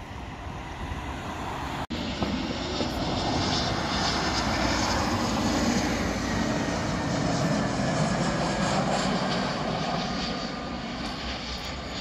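Jet engines of an Airbus A320-family airliner on final approach passing low by, the engine noise swelling to a peak and then fading as it goes past. There is a brief dropout about two seconds in.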